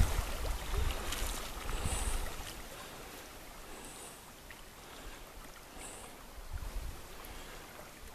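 Wind buffeting the microphone for about the first two seconds, then a quiet steady rush of river water and breeze. A faint high chirp repeats about every two seconds.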